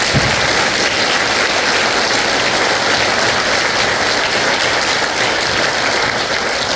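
A congregation applauding, a steady round of clapping.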